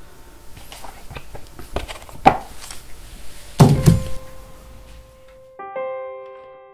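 A few light knocks and clicks, then a heavy thunk about three and a half seconds in. From about five and a half seconds a short music cue of steady held notes begins.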